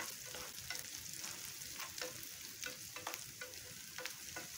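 Peanuts, chopped onion and garlic sizzling in oil in a nonstick frying pan as they are stirred, with scattered small clicks of the spatula and peanuts against the pan. They are being fried until reddish.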